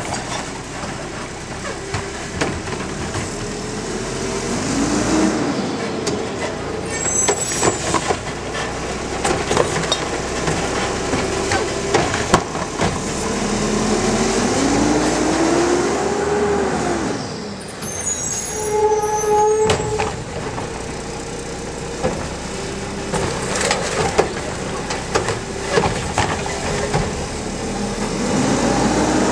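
Diesel engine of a McNeilus front-loader garbage truck with a Curotto Can automated arm, revving up repeatedly as the hydraulic arm lifts and empties curbside carts. Sharp clanks and bangs come as the carts are slammed and shaken.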